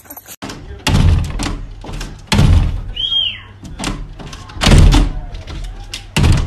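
A large dog pushing against a glass sliding door, the door thumping and rattling in its frame in four loud knocks, about a second and a half to two seconds apart.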